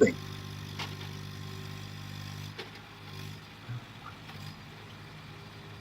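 Skid steer engine running steadily at an even speed, with a few faint clicks.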